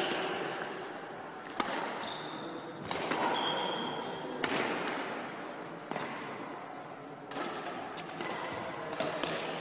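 Badminton rally: racquets striking a shuttlecock in a series of sharp hits, roughly one to two seconds apart, echoing in a large hall. Short high squeaks of court shoes on the hall floor come between the hits.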